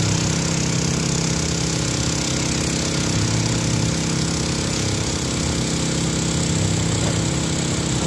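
Diesel construction machinery, a site dumper and an excavator, running steadily with a constant engine hum and a dense rattling noise over it.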